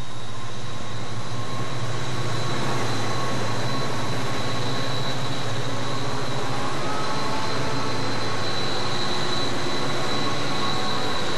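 Southern Pacific diesel freight locomotives passing close by, their engines running steadily under power as the westbound train departs, with the boxcars behind them starting to roll past near the end.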